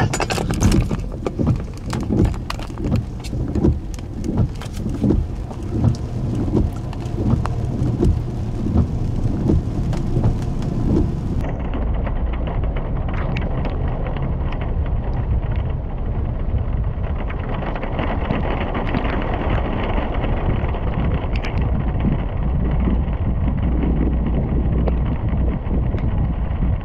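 Rain with gusty wind noise on the microphone during a tornado-producing thunderstorm. The noise comes in uneven pulses for the first eleven seconds or so. After that it turns steadier and duller, with a low rumble: rain heard from inside a vehicle.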